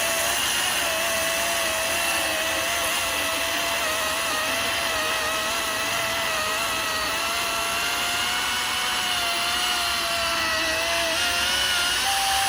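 Battery-powered DeWalt electric chainsaw running steadily through a log, its motor pitch wavering slightly under the load of the cut. Near the end the pitch steps up and holds level as the saw runs freer.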